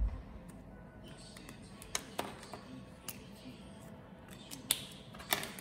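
A handful of sharp plastic clicks of marker caps being handled and snapped, five or so spread over a few seconds, the loudest two near the end, over a faint steady background.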